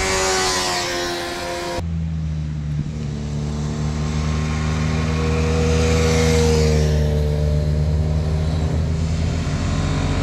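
Motorcycles riding past one after another, engines running at speed. About two seconds in the sound cuts abruptly to a deeper, steady engine note, and a bike goes by loudest around six seconds in, its pitch dropping as it moves away.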